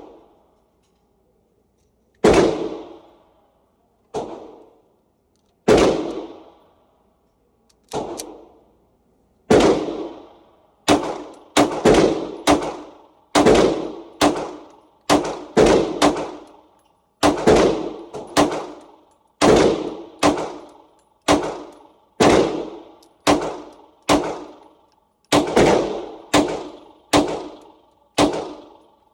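Semi-automatic AR-15 rifle firing about thirty single shots, a few seconds apart at first and then in a faster, uneven string of roughly one or two a second, each shot trailing off quickly.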